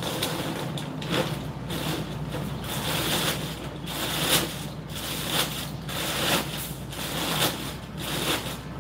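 Large plastic bag of dry cat food crinkling and rustling in irregular bursts as a hand digs into it to scoop out food.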